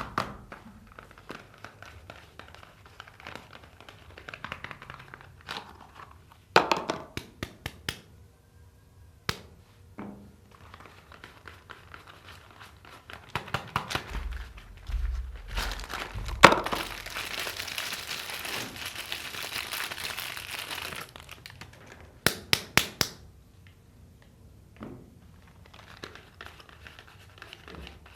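Soap bar wrappers being handled, crinkled and torn open, with bursts of sharp clicks and taps, a few thumps, and a long stretch of rustling tearing about two-thirds of the way through.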